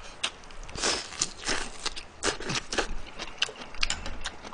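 Close-up chewing of a mouthful of spicy chicken bulgogi with shredded scallions: irregular wet smacks and soft crunches, a few a second.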